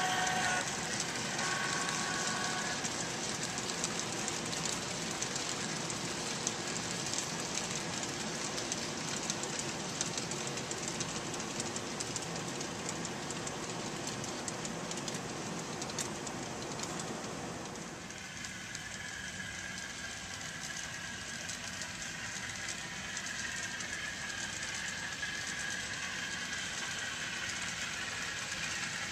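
Model railroad freight cars rolling along the track: a steady hiss of small wheels with many light clicks over the rail joints. A model steam whistle's tones fade out in the first couple of seconds, and the rolling noise drops quieter about eighteen seconds in.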